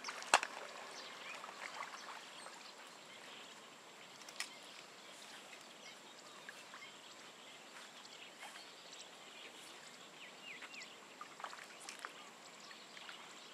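Faint open-air ambience with scattered small bird chirps and a faint steady high-pitched tone. A sharp click comes about half a second in, and a smaller one about four seconds in.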